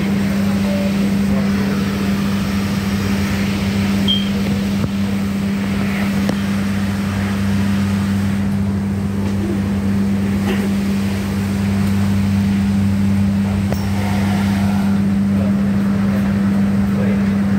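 Inside an LRT Jabodebek light-rail carriage, a steady low hum from the train's equipment runs under an even rushing noise as the automatic train wash sprays water over the windows.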